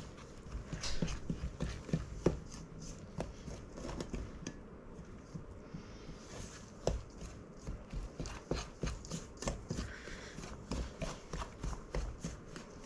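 Bread dough being stirred by hand in a mixing bowl: irregular knocks and scrapes of the utensil against the bowl, about two or three a second.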